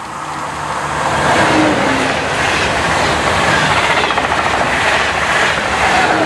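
A train passing close at speed: a loud rush of running and wheel noise that swells over the first second or so, then holds steady.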